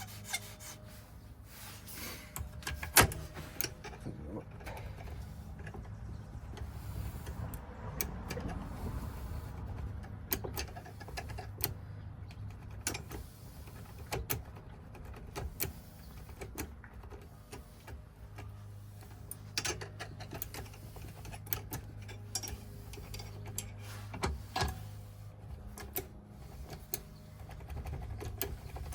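Key blank being hand-filed and worked in a Ford five-pin ignition lock cylinder to impression its cuts: irregular light metallic clicks and a stretch of scraping, over a steady low hum.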